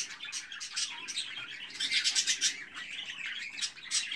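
Many caged budgerigars chirping and chattering together, a dense run of quick, high, overlapping calls.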